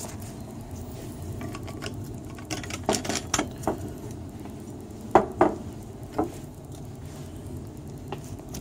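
Glass lab bottle and its blue plastic screw cap being handled and set down on the bench: a handful of sharp clinks and knocks between about three and six seconds in, the loudest pair around five seconds.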